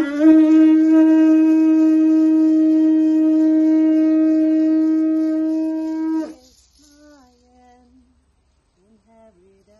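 Conch shell trumpet blown in one long, steady note that cuts off about six seconds in. Faint sung or hummed notes follow.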